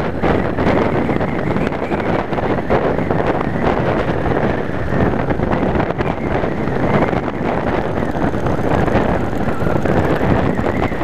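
Steady wind rush over the microphone of a motorcycle at cruising speed, with the running of the Yamaha Wild Star's V-twin engine underneath.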